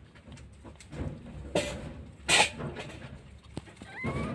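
A newborn kitten gives a thin, rising mew near the end. Before it come two short noisy bursts, the second, about two and a half seconds in, the loudest.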